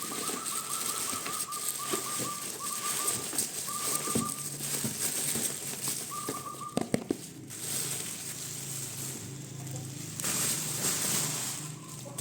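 A bird trilling in short rapid bursts, several in the first four seconds and one more about six seconds in. Under it is a steady hiss with a few sharp clicks, typical of packaging being handled.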